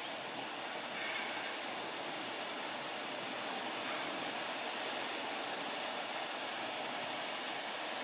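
Wind buffeting the microphone: a steady rushing noise that gets a little louder about a second in.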